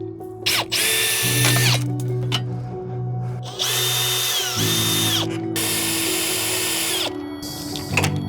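Power drill spinning in three short bursts with a shorter one near the end, its motor whine briefly dipping in pitch during the second burst as it takes load, backing out fasteners on the car's front end.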